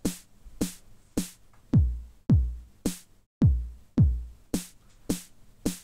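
A sample-based drum plugin built in plugdata and compiled with Heavy plays a seeded step sequence of drum samples. Steady hits come about two a second, mixing deep kicks with a quickly falling pitch and short, bright hits.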